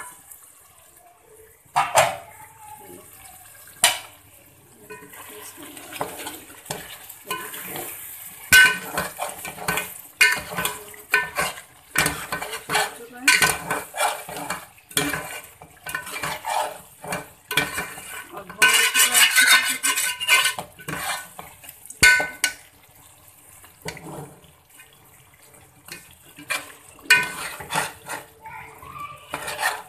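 A metal spoon clinking and scraping against a steel cooking pot while stirring chicken in its gravy. There are a couple of single knocks, then runs of quick clinks through the middle and again near the end.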